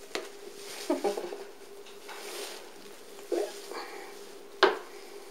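A cat playing around a sisal scratching post, pouncing and batting at a wand toy: a few light knocks and rustles, the sharpest about four and a half seconds in.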